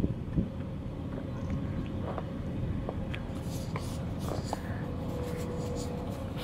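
Steady low wind noise buffeting the microphone in open country, with a soft thump just after the start, a few faint ticks and a faint steady hum.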